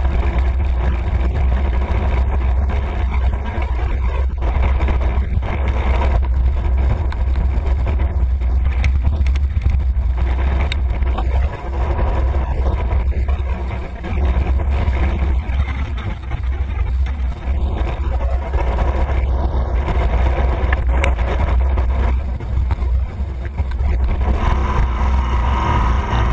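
Steady wind rumble buffeting the microphone of a camera moving along a road, with traffic and tyre noise underneath. It dips briefly a couple of times.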